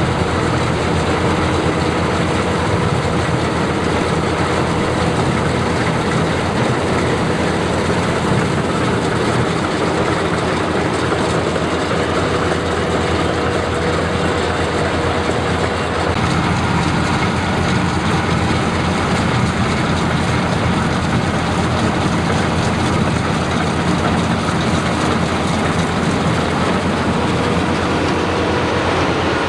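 Combine harvester running steadily under load, a continuous dense mechanical din of engine and machinery with a few steady hums in it. One of those hums stops a little past halfway.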